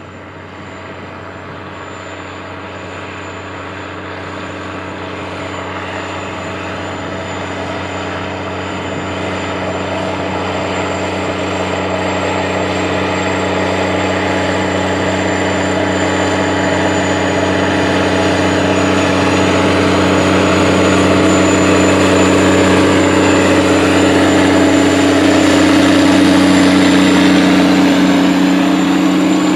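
Case IH 535 Quadtrac tractor's diesel engine working under load as it pulls a 40-foot Great Plains 4000 TC Turbo-Chopper through the soil, a steady engine hum with a thin high whine. It grows steadily louder as the tractor comes closer.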